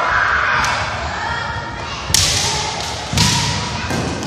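Kendo bout: bamboo shinai strikes and stamping feet on a wooden floor, two sharp cracks about two and three seconds in, the second with a heavy thud. Drawn-out kiai shouts come in between.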